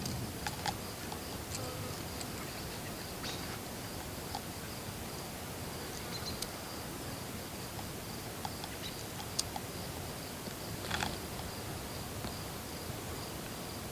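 A steady, high insect drone, like crickets, over a low hum of outdoor air, with a few scattered light taps and ticks.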